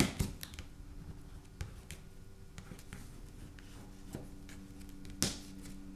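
Scattered faint clicks and taps of Neocolor II wax pastel sticks being picked up, handled and set down on the work table, with a sharper tap about five seconds in, over a steady low electrical hum.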